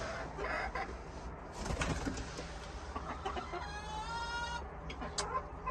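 Chickens clucking, with one drawn-out call lasting about a second a little past halfway and short clucks near the end. A few sharp knocks come early on.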